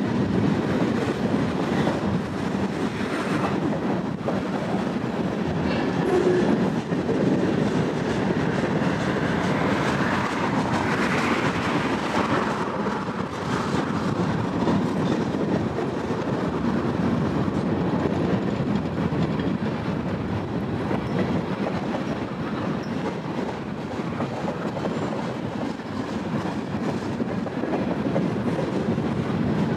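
Freight cars of a Union Pacific train rolling steadily past: a continuous rumble of steel wheels on rail, with faint repeated clacks.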